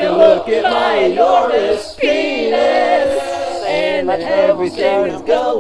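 Several voices singing a cappella together, more than one pitched line at a time, with a held note about two seconds in.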